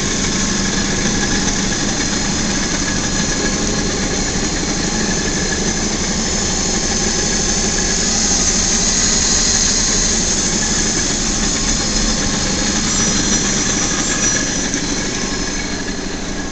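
Chicago Dreis & Krump 90-ton press brake running idle: a steady machine hum with a thin high tone above it, unchanging throughout.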